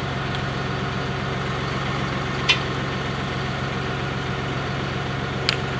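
John Deere 5075E tractor's diesel engine idling steadily, with two short clicks about three seconds apart.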